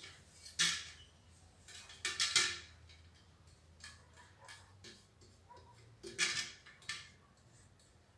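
Fingers rubbing ink onto a brass trombone bell: short scratchy rubbing strokes about half a second in, around two seconds in and about six seconds in, with light taps on the metal between.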